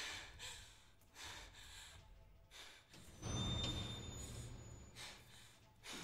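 A woman breathing hard, with panting gasps about a second apart. A little past the midpoint, a louder low rumble comes in for about a second.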